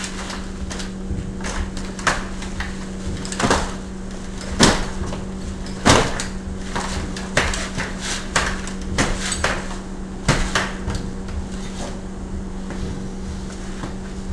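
Irregular knocks and clunks from a wheelchair's frame and a-arm suspension as it is rocked and rolled to test its air shocks, pumped to 150 psi, with a few louder bangs and a steady hum underneath.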